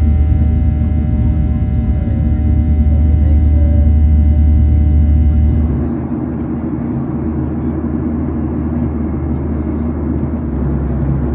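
Cabin noise of a Boeing 737-800 in the climb, heard at a window seat over the wing: its CFM56 engine at climb thrust gives a steady low rumble with several steady whining tones. About six seconds in it changes abruptly to an even rushing noise without the whine.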